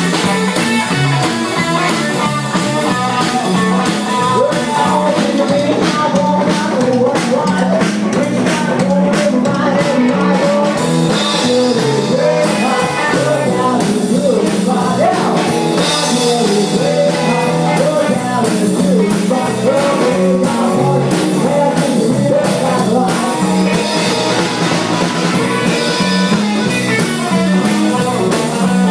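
A live rock and roll band playing loudly: electric guitar through an amplifier and a small drum kit keeping a steady beat, with a voice singing over them.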